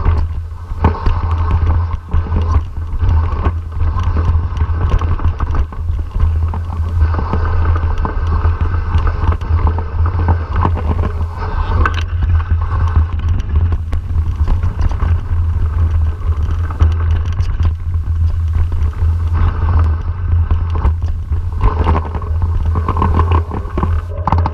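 Mountain bike rolling down a rough dirt singletrack, heard through an action camera: a steady low wind rumble on the microphone with frequent rattles and clicks from the bike over the bumpy ground.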